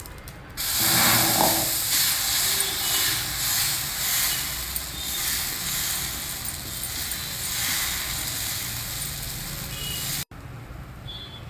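Jowar dosa batter sizzling on a hot cast iron dosa tava as it is poured and spread in a spiral with a ladle. The steady hiss starts suddenly about half a second in and cuts off abruptly near the end.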